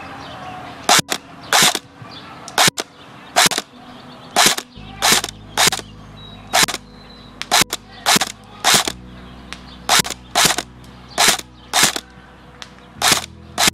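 ICS CXP-MARS Komodo electric airsoft rifle (AEG) firing single shots at a slow, uneven pace, about twenty sharp snaps one to two a second.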